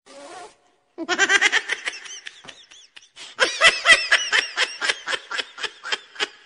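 Laughter: a rapid run of high-pitched laughing after a brief gap about a second in, then a longer, even run of quick laugh pulses from about three seconds in.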